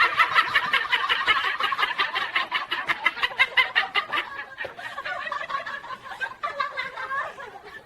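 Parrot cackling in a rapid run of short, high calls like a laugh, about eight to ten a second. They grow fainter and more broken after about four seconds.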